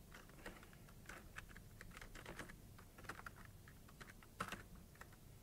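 Typing on a computer keyboard: a run of irregular key clicks, with one louder keystroke near the end.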